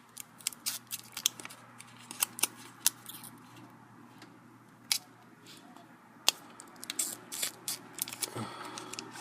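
Scattered sharp clicks and taps of small plastic and metal laptop parts being handled while the LCD video cable is slid into place, heaviest in the first few seconds and again near the end, over a faint low hum.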